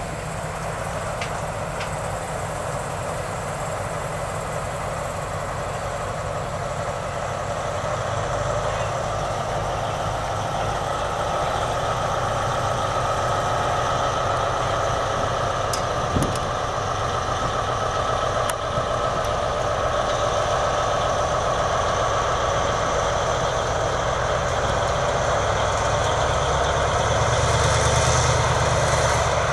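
Diesel locomotive engines running as a slow catenary work train rolls by. The engine sound grows louder near the end as the ex-SNCB class 73 diesel shunter passes close. A couple of short clicks come about halfway through.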